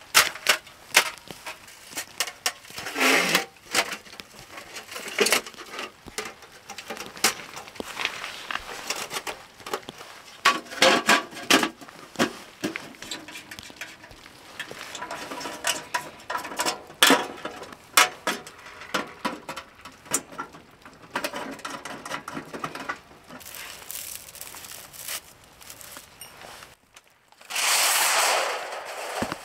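Metal clinks and knocks as a portable tent wood stove is unpacked and assembled, its chimney pipe sections fitted together. Near the end comes a loud scraping rush lasting about two seconds.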